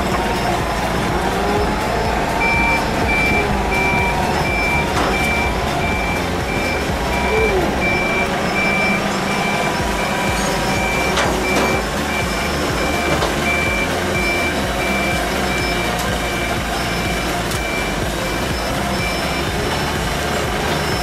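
Komatsu forklift's backup alarm beeping at a steady pitch, a little under two beeps a second, starting about two seconds in and stopping near the end. Under it the forklift's engine runs, rising and falling in pitch as it drives.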